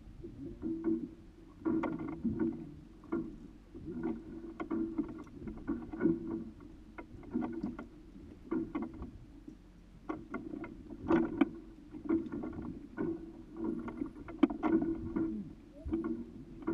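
Water lapping and slapping irregularly against the hull of a small polyethylene boat.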